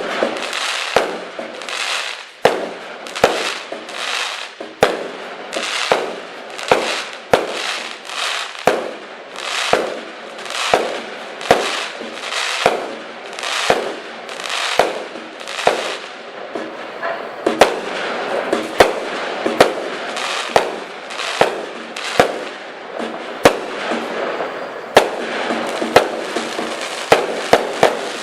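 Fireworks battery (cake) firing shot after shot: a sharp report about every three-quarters of a second, with a rushing hiss between the shots. From about two-thirds of the way through, the shots come faster and closer together.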